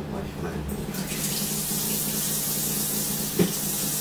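Kitchen faucet running steadily into the sink, coming on about a second in, with a single sharp knock near the end.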